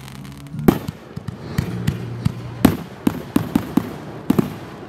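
Aerial fireworks bursting: about ten sharp bangs, the first a little over half a second in and most coming in a quick run through the second half.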